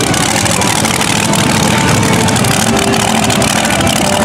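Mega truck engine running at idle, steady and loud.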